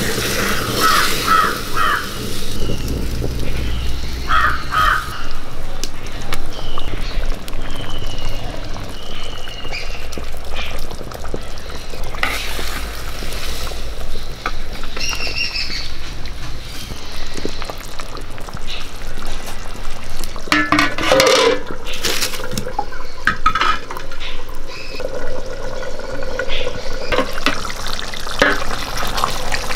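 Chicken curry stirred with a ladle in a clay pot over a wood fire, the gravy bubbling and frying. Birds call now and then in the background.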